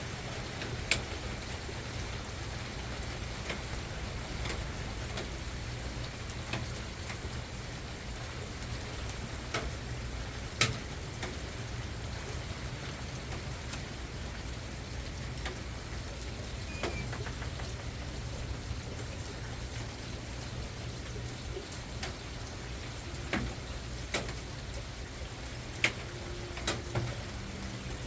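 Steady soft rain falling, with single heavier drops hitting a surface at irregular moments a few seconds apart, loudest about a third of the way in and near the end.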